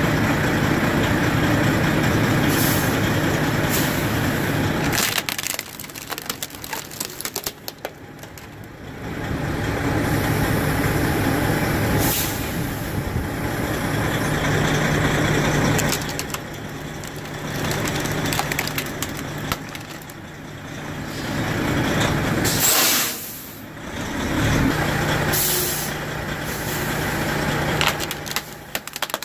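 Semi truck's diesel engine running at low speed as the truck creeps forward, its level rising and falling, with several short air-brake hisses.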